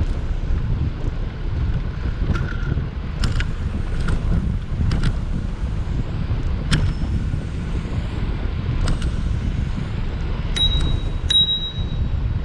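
Wind rumbling on an action camera's microphone while riding a bicycle. Scattered sharp metallic clicks and rattles come from the bike, with two short ringing pings near the end.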